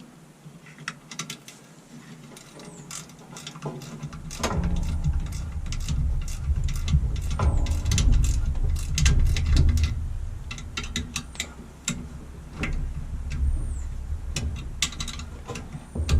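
Screws being driven back into a washing machine's motor brackets with a hand tool: a quiet start with a few metal clicks, then from about four seconds in a run of ratcheting clicks and clanks over a heavy low rumble of the machine being handled.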